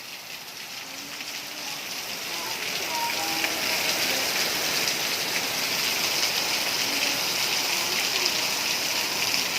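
Heavy rain pouring and splashing, building over the first few seconds and then holding steady.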